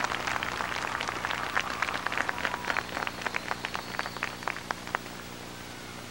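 Crowd applause thinning to a few scattered claps that stop about five seconds in, leaving a steady hiss.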